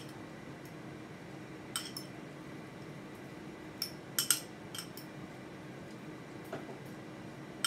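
Metal fork clinking against a glass bowl of beaten egg as it is dipped for egg wash. The light clinks come singly or in pairs, scattered through, the sharpest about four seconds in, over a faint steady hum.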